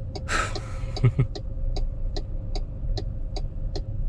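An MG Astor's turn-signal indicator clicking steadily inside the cabin, about two and a half clicks a second, over the low hum of the 1.3 turbo engine running. A short rushing noise comes near the start, and two low thumps come about a second in.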